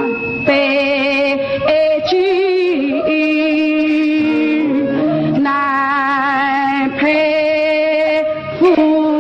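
Female voice singing a slow Yue (Shaoxing) opera aria over instrumental accompaniment, in phrases of long held notes with vibrato.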